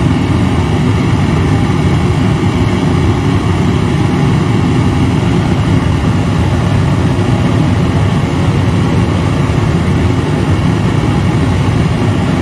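Homemade propane forge burner running at full flame, a loud, steady, deep rushing sound that holds unchanged.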